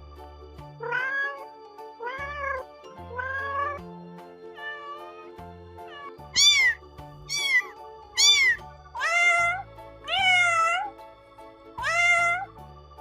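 Cats and kittens meowing over background music: about nine separate meows, each under a second. Three short, high-pitched kitten meows come in the middle, between lower meows from grown cats.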